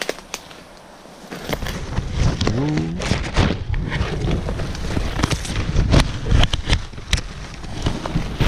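Leaves and branches brushing and scraping against a body-worn camera as someone pushes through thick brush, starting about a second in: dense rustling and snapping twigs over heavy rumble on the microphone.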